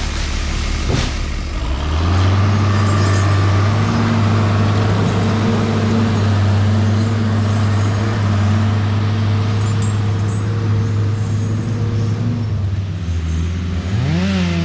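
A heavy machine engine running. It picks up speed about two seconds in, holds a steady pitch, then revs up and back down near the end.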